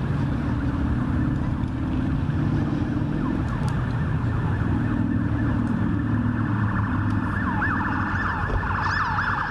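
A siren wailing, its pitch sweeping up and down, the sweeps coming faster near the end, over a steady low rumble.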